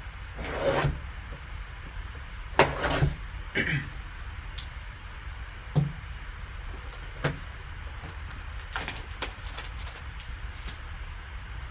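Sealed trading-card box handled on a table: a few sliding swishes and light knocks, then the box's cellophane shrink wrap crackling as it is torn off.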